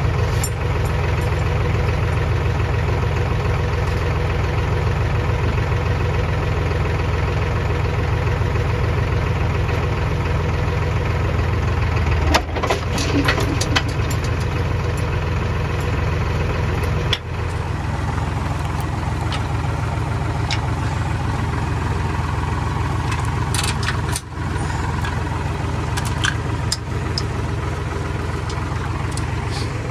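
An engine running steadily at an even speed, with a few short clicks and knocks over it.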